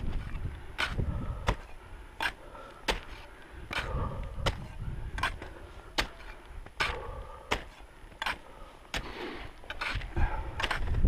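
Winter climbing on snow and ice: a steady run of sharp clicks about every three quarters of a second, as crampons and an ice axe bite into hard snow and ice, over a low rumble that comes and goes.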